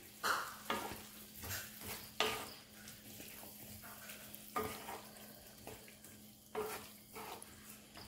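A spatula stirring chunks of fried chicken through thick, reducing sauce in a black pan: irregular scrapes and light knocks against the pan, over a faint sizzle.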